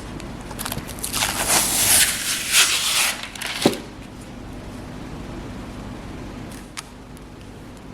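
Rustling and scraping of handled packaging for about two seconds, then a single sharp click, over a steady low hum.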